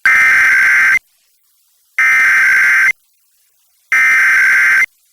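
Emergency Alert System SAME header: three bursts of warbling digital data tones, each about a second long, a second apart. They encode the alert, here a Required Monthly Test, ahead of the spoken test message on FM radio.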